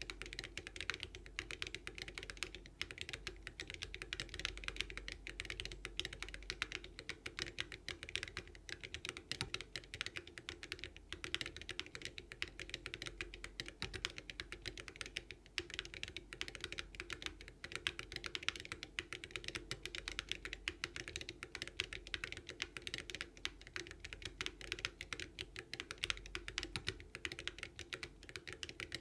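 Continuous fast typing on a NEO75 Cu mechanical keyboard fitted with HMX Snowcrash switches and Awekeys Viking metal keycaps, a clacky sound with keystrokes following each other densely.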